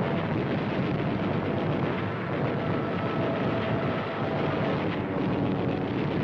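Steady, dense rumble of wartime newsreel battle sound effects, blending explosions and aircraft engine drone.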